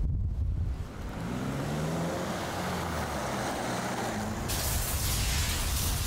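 A vehicle engine running, its pitch rising at first. About four and a half seconds in, a loud rushing hiss of strong wind starts abruptly.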